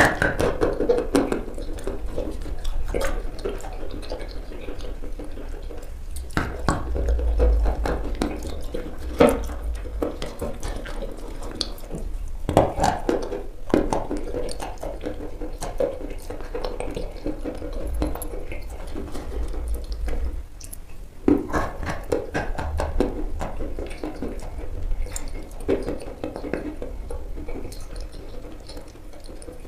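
Wet, sticky mouth sounds of eating a thick grey chalk paste: lip smacks and squelches, with a spoon clicking against the plastic bowl now and then.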